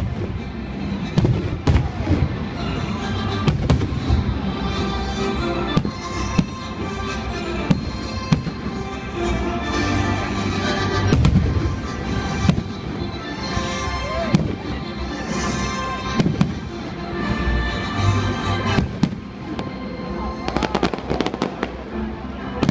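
Fireworks display: aerial shells bursting again and again over music played on the stadium loudspeakers, with a quick run of crackling bangs near the end.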